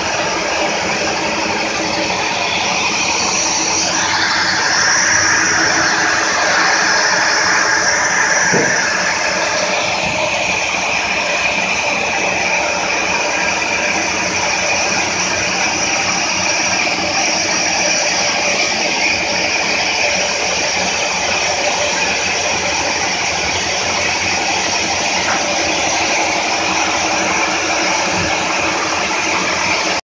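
Horizontal band sawmill running and cutting through a live-edge suar wood log: a steady, loud mechanical din with steady high tones from the blade. It gets a little louder between about four and nine seconds in.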